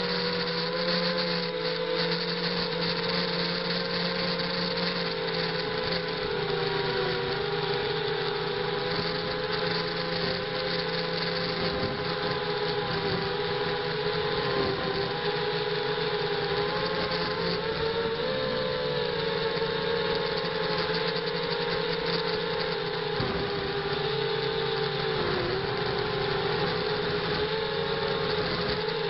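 A ZMR 250 quadcopter's brushless motors and propellers in flight, heard through its onboard camera: a steady whine whose pitch wavers slightly with throttle, over a constant hiss.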